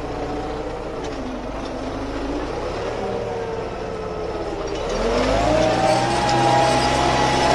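MTZ 820.2 tractor's four-cylinder diesel engine running steadily under ploughing load, then revving up about five seconds in, with its pitch rising and the sound growing louder before holding at the higher speed.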